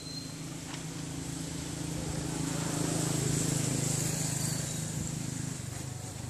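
Small boat engine running steadily, swelling to its loudest about halfway through and then fading as the boat passes.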